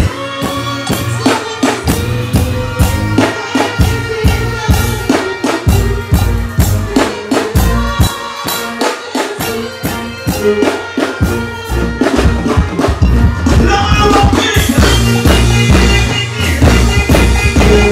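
Loud live music through a stage sound system: a heavy, steady bass-and-drum beat, with a performer's voice on the microphone over it.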